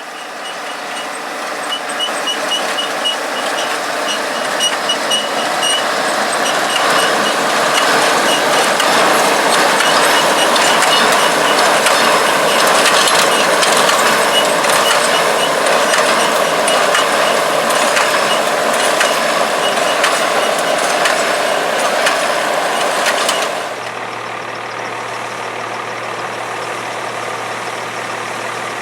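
International Farmall 1256 Turbo tractor's turbocharged six-cylinder diesel running under load while driving an International 430 small square baler, growing louder over the first ten seconds, with a fast high ticking early on. About 23 seconds in it changes abruptly to a quieter, steady engine hum.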